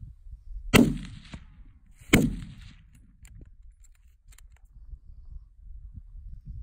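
Two gunshots about a second and a half apart, each sharp and loud with a short echoing tail, over a low rumble.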